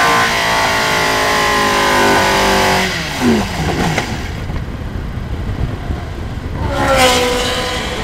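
Single-seater racing car's engine heard from an onboard camera, with a steady high note that drops away about three seconds in as the car lifts off and slows. A low rumble with wind noise follows, then a sharp brief rev about seven seconds in before the engine settles to a steadier, lower note.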